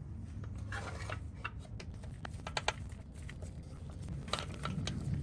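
Two small screws being driven in by hand to hold the electrical connector on a Lexus GX470 center differential actuator: a run of light, irregular clicks and ticks from the tool on the screws and housing.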